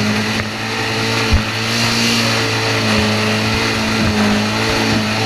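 Engine running steadily with a low, even drone and a slightly wavering pitch, and a short knock about a second and a half in.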